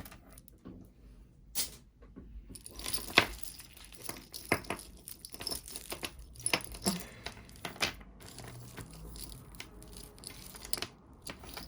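Costume jewelry clinking and clattering as pieces are picked up, sorted and set down, with light rustling in between; a sharp clack about three seconds in is the loudest.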